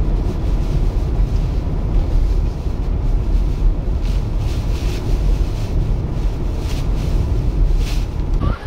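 Strong wind buffeting the microphone in a snowstorm: a loud, steady, deep rumble.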